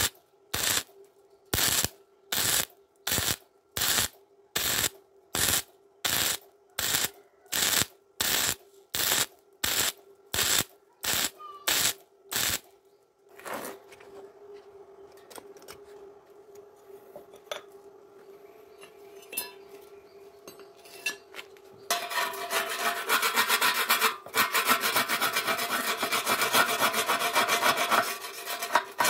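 MIG welder arc firing in short, evenly spaced stitch-weld bursts, about one every three-quarters of a second, the pulsing used to avoid burning through thin galvanized steel; the bursts stop about twelve seconds in. After a quieter stretch with a few light ticks, a brass wire hand brush starts scrubbing the weld about 22 seconds in, a dense, continuous rasping, over a steady hum.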